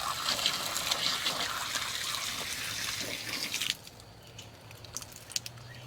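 Water spraying from a garden hose at the outdoor faucet, a steady hiss that stops abruptly about two-thirds of the way through.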